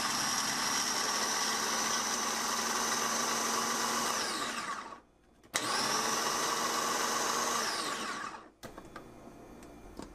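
Philips Multichopper's electric motor spinning the ChopDrop blade through cut onion while its top is held down, running steadily, then falling in pitch and stopping about four and a half seconds in. After a click it starts again, runs about two seconds and winds down to a stop, followed by a few light clicks of the parts being handled.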